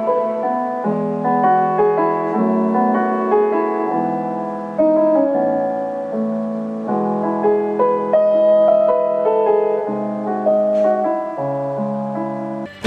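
Background piano music: a melody of held notes over lower chords.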